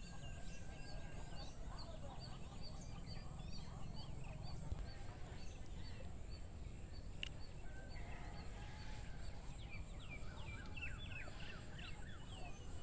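Birds calling outdoors: short high chirps repeated about twice a second, then a run of quick downward-sliding calls near the end, over a steady low rumble.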